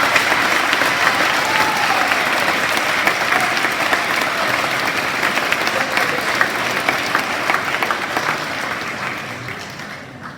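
Audience applauding, many hands clapping; the applause dies away over the last couple of seconds.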